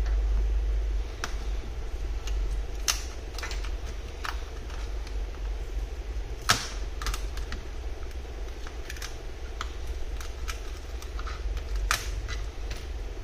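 Irregular sharp clicks and ticks of plastic pry tools working under a glued-down iPad Air 2 battery as it is pried up off its adhesive. The loudest click comes about six and a half seconds in. A steady low hum runs underneath.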